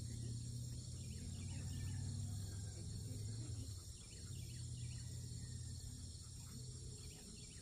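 Outdoor field ambience: a steady high chorus of insects trilling over a low steady rumble, with a few faint bird chirps.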